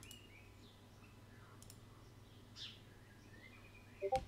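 Computer mouse clicking faintly over a low steady hum, with a few faint high chirps. Near the end comes a quick run of three or four short tones, the loudest thing heard.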